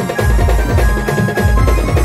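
Brass band playing live and amplified: a heavy bass drum beat about twice a second under fast percussion, with held melody notes above.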